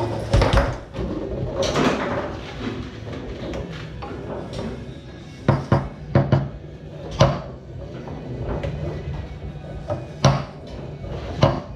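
Foosball being played on a Tornado table: sharp, irregular knocks of the ball struck by the rod men and hitting the table, several in quick succession about five and a half to six seconds in.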